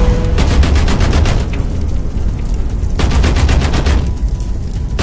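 Loud soundtrack music with a heavy, continuous low bass and rapid, even drum-like hits. The upper part drops away abruptly about one and a half seconds in and again about four seconds in.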